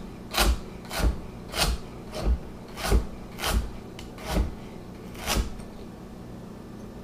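Damascus chef's knife slicing through carrots and hitting the cutting board, about eight crisp chops roughly every 0.6 s, stopping about five and a half seconds in.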